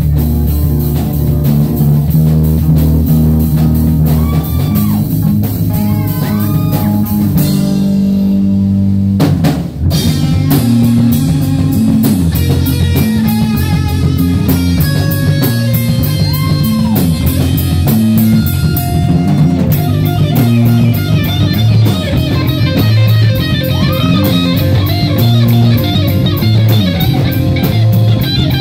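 Metal band playing live: distorted electric guitars, bass and drum kit. About a third of the way in the drums drop out for about two seconds under a held low guitar chord, then the full band comes back in.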